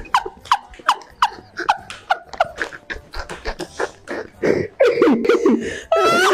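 A person laughing hard in short repeated bursts, about three a second, each with a quick drop in pitch.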